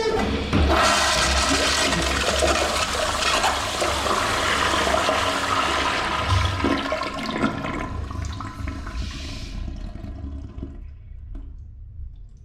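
A toilet flushing: water rushes in suddenly and swirls loudly through the bowl for about ten seconds, then drains away and fades out near the end.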